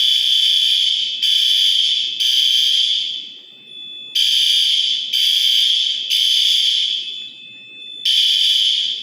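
Fire alarm horns sounding loud, buzzy blasts in groups of three with a short pause between groups, the temporal-3 evacuation pattern, as the system goes into alarm during a test activation.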